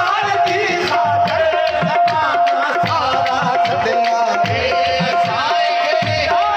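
Live qawwali music: a male voice sings through a microphone and PA over tabla drumming that beats in a regular rhythm, with one steady note held underneath.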